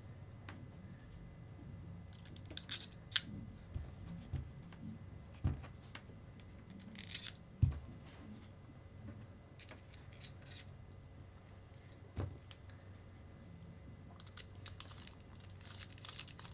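Small metal parts of a brushless RC motor being handled and fitted back together, giving irregular light metallic clinks and clicks with a few dull knocks in between.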